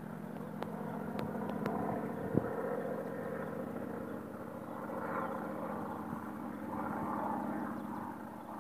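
Engine of a firefighting water-bombing plane, heard steadily from the distance as it flies off after its drop, swelling a little twice. A few light clicks and one sharp knock come about two seconds in.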